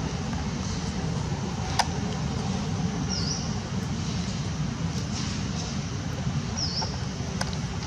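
Outdoor background noise: a steady low rumble, with two short high chirps and a couple of sharp clicks.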